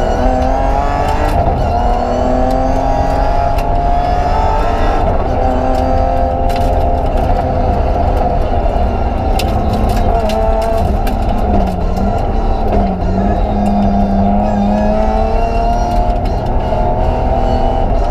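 In-cabin sound of a BMW 325 Group A rally car's straight-six engine driven hard on a stage, its revs climbing and dropping again and again through gear changes, over steady road rumble. Twice, about two-thirds of the way through, the revs dip sharply and pick up again, and sharp clicks come through the car.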